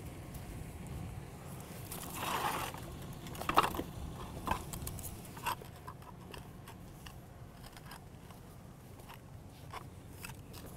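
Pickup truck engine idling steadily, with a scrape about two seconds in and a few sharp clacks over the next few seconds as the stacked floor tiles are handled.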